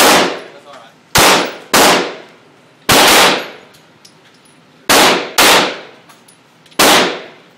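Glock 19 9mm pistol fired shot by shot, about seven sharp, loud reports at uneven intervals of half a second to two seconds. Each shot rings out in a long echo off the walls of the indoor range.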